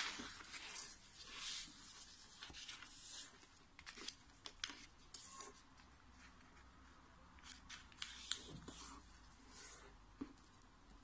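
A square of origami paper being handled and folded by hand: faint rustling swishes and crackles, with sharp little ticks as the creases are pressed flat.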